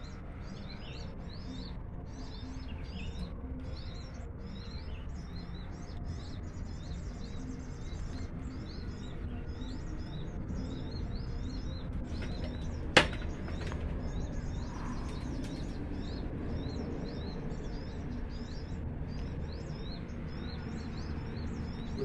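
Many small birds chirping continuously in short high notes, over a steady low rumble. A single sharp click about halfway through is the loudest sound.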